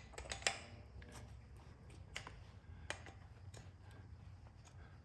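Faint, irregular metallic clicks of a wrench working a nut welded onto a broken exhaust manifold bolt, rocked back and forth to break the seized bolt loose.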